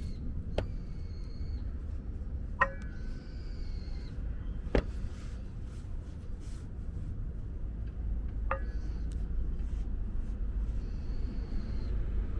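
Honda Acty kei truck running with a steady low rumble, broken by four sharp metallic clunks, two of them with a short ring, and a few thin high tones about a second long.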